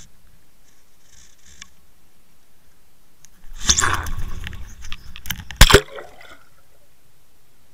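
Water splashing around an underwater fishing camera as it breaks the surface and plunges back under. A burst of sloshing starts about three and a half seconds in, and a few sharp splashes follow about a second later, the loudest near the end of the splashing.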